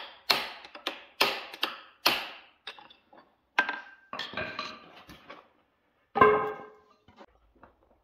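Hammer blows on a steel punch driving the gudgeon (wrist) pin out of a small two-stroke engine's piston, which is braced on a wooden block: about six sharp taps in quick succession in the first two seconds. Lighter metallic clinks follow as the piston and pin come free, and one loud ringing clank comes about six seconds in.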